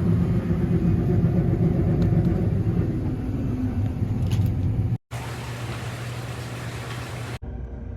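Combine harvester running, a steady low drone as heard inside the cab. About five seconds in it cuts to a different, steadier machine hum with more hiss, then cuts again near the end.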